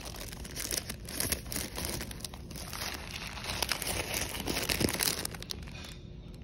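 Thin paper food bag crinkling and rustling as hands open it and fold back the paper, with many quick crackles. It dies down about a second before the end.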